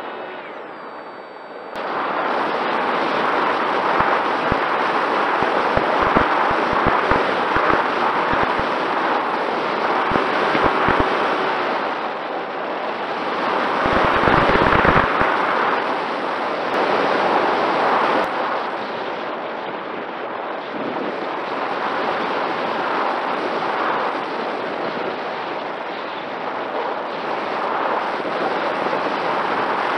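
Wind rushing over the microphone of the onboard camera on a Mini Talon RC plane in flight. It comes in about two seconds in, then swells and eases, with low buffeting thumps, over a faint steady hum from the electric motor and propeller.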